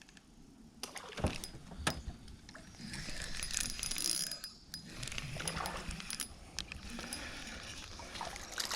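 Close handling noise: two sharp knocks about one and two seconds in, then continuous rustling, clicking and knocking.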